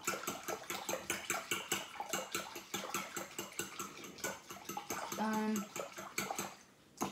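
A spoon stirring dissolving crystal jelly in hot water in a glass mixing bowl: quick, even clinks of the spoon against the glass, about five a second, over the slosh of the liquid. The stirring stops shortly before the end.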